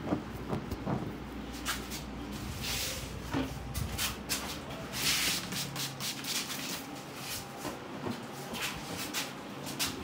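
Fire massage on the neck and shoulder: a run of short rubbing and swishing noises as a hand works over skin and cloth, one longer swish about halfway through. A low hum underneath stops about six seconds in.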